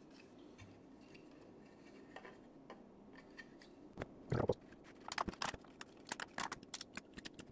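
3D-printed PLA plastic parts being handled: faint at first, then a knock about four seconds in and a quick run of sharp plastic clicks and taps as small printed pieces are fitted together in the hands.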